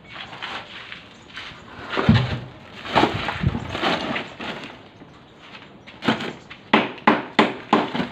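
Knocks and thuds of broken concrete and tile rubble being handled and dropped while a broken-open concrete tomb niche is cleared. Near the end comes a run of sharp, evenly spaced taps, about three a second.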